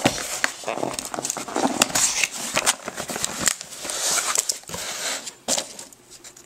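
Packaging of a trading-card box being handled and opened by hand: rustling and crinkling with many sharp clicks, dying down near the end.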